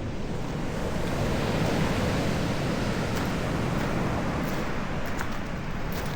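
Sea surf rushing steadily, swelling a little and then easing off.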